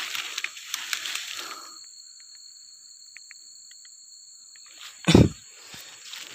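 Leaves, grass and twigs rustling and crackling as someone pushes through undergrowth for about two seconds, then a quieter stretch with a few faint high ticks. About five seconds in comes a single loud, deep thump, and a steady high tone sits underneath throughout.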